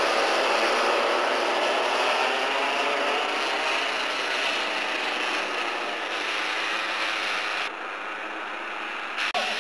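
A pack of Parilla two-stroke racing kart engines buzzing together as the field rolls round to the start, a dense rasping drone of many engines at slightly different pitches. Near the end the sound turns duller and drops out for a moment.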